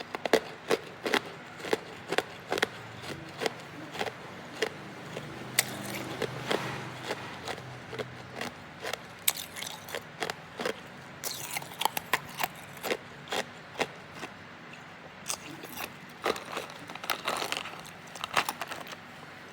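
Hard ice being bitten and chewed close to the microphone: a long run of sharp, irregular crunches and cracks.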